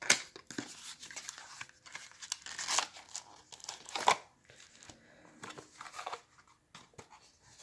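Cardboard and plastic packaging of a trading-card deck box being handled and pulled open: rustling and crinkling, with a few sharper snaps at the start, about three seconds in and about four seconds in.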